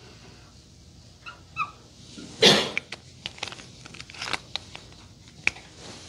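Dry-erase marker drawing on a whiteboard. It gives a few short squeaks, then a louder rasping stroke about two and a half seconds in, then a quick run of short strokes as lines and loops are drawn.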